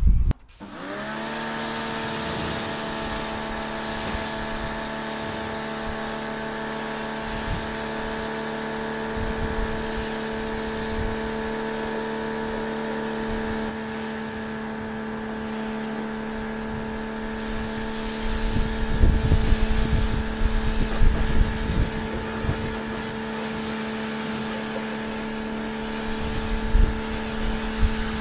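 An electric motor switches on, spins up to speed within about a second and then runs at a steady pitch, with irregular low thumps and rumbles coming and going in the second half.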